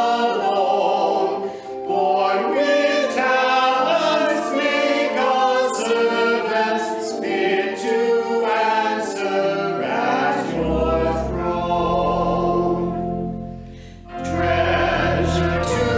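A choir singing with musical accompaniment; deep bass notes join about ten seconds in, and the singing pauses briefly near the end before going on.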